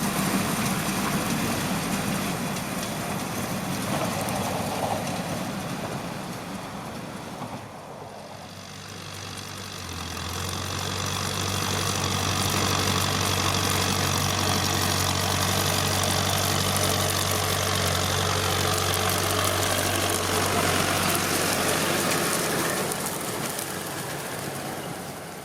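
John Deere 5720 tractor's diesel engine running steadily; about a third of the way in the sound dips and settles into a steady low hum, then fades out near the end.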